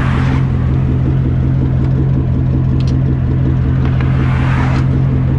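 A vehicle engine idling with a steady low hum, with a few light metallic clicks of sockets being handled in a plastic tool case.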